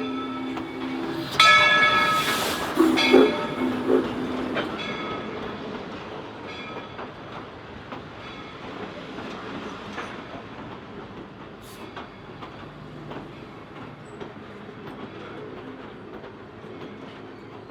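Steam locomotive whistle blowing several blasts, the loudest and longest about a second and a half in, then a few shorter ones. After that the train rolls on the rails as a steady noise with scattered clicks, slowly fading.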